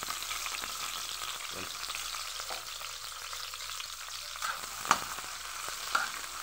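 Chopped garlic, ginger, onion and chili sizzling steadily in hot oil in a wok as they are sautéed. A metal spatula knocks against the pan about five seconds in and again near the end as the stirring begins.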